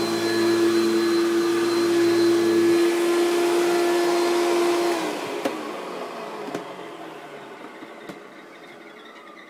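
1995 Hoover Turbopower 3 upright vacuum cleaner running with a steady whine; a lower hum drops out about three seconds in. About five seconds in the motor is switched off and winds down, its pitch falling as it fades, with a few faint clicks.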